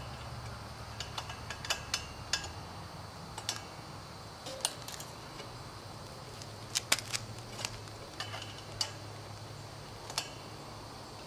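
Hex key clicking and knocking in the crank bolt of an aluminium crank arm as the arm is tightened onto the bottom bracket spindle: scattered, irregular sharp metallic clicks over a low steady hum.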